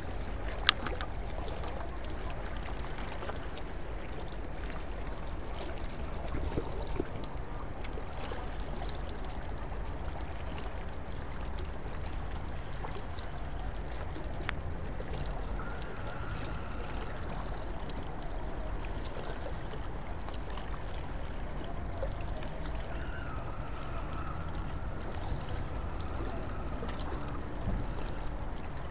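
Steady low outdoor rumble with a faint water-like hiss, and a single sharp click about a second in.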